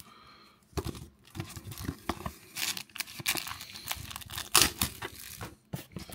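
Plastic wrapper of a trading-card pack crinkling and cardboard box flaps rustling as they are handled, in irregular bursts.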